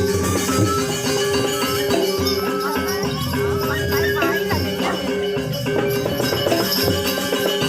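Balinese gamelan music playing steadily, with bronze metallophone notes, a low beat about twice a second, and rattling cymbal-like percussion.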